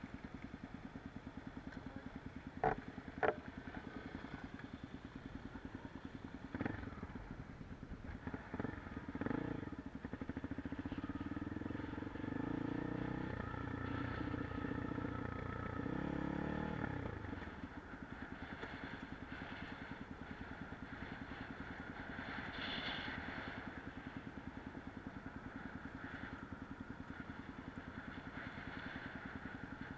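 Motorcycle engine running while riding, with two sharp knocks about three seconds in. The engine gets louder and its pitch shifts between about ten and seventeen seconds in, then it settles back to a steady run.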